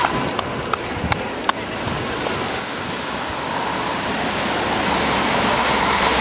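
Steady rushing hiss of skate wheels and spray on a rain-soaked road, with a few sharp clicks in the first second and a half.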